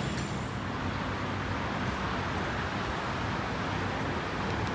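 Steady running noise of a BTS Skytrain electric train.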